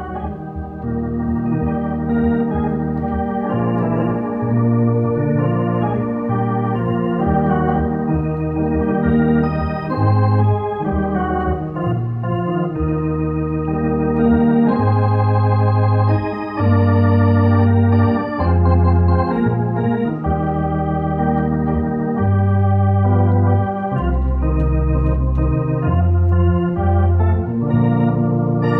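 Electronic organ playing held chords over long, low bass notes, each chord sustained without fading before changing to the next.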